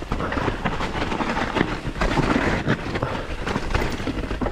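Santa Cruz Bronson mountain bike being ridden down a rough woodland trail: the tyres rumble over the ground, with frequent knocks and rattles from the bike at the bumps.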